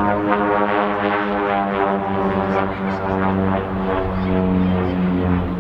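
Piston engine and propeller of an aerobatic display plane flying overhead: a steady, loud drone whose pitch drops slightly in the first couple of seconds.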